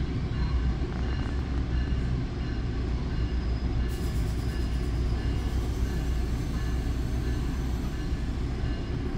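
Steady low rumble inside a Bombardier MultiLevel commuter coach as the train rolls slowly along a station platform, with a faint high whine above it.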